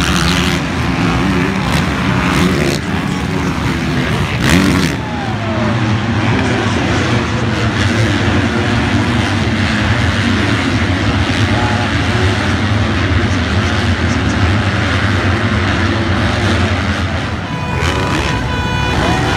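Several motocross bikes racing on a dirt track, their engines revving up and down together as they accelerate out of corners and shift gears.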